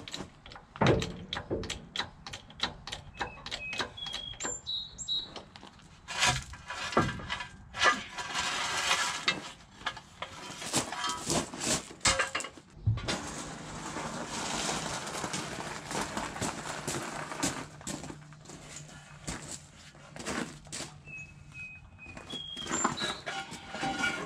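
Hand tools working on a truck's S-cam drum brake: irregular metal taps, clicks and knocks, with a few brief high chirps between them.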